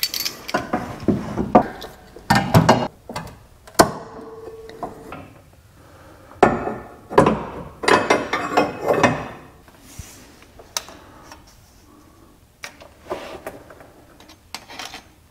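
Steel suspension bracket and clamp being handled and fitted against a car's frame: irregular metal knocks, clinks and scraping, in clusters with short pauses between.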